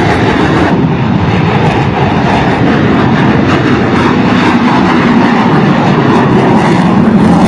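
F-35 Lightning II fighter jet flying low and slow overhead, its jet engine making loud, steady jet noise that grows a little louder near the end.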